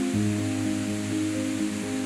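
Background music of soft sustained chords, with a deep low note coming in just after the start, over a steady hiss.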